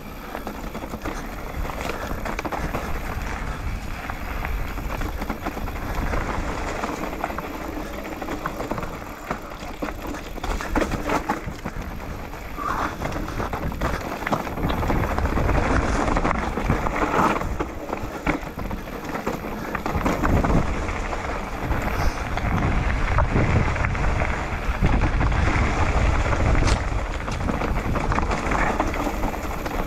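Mountain bike descending a dirt singletrack: tyres running over dirt and dry leaves, and the bike rattling and knocking over bumps. Wind rumble on the microphone grows louder in the second half as the speed picks up.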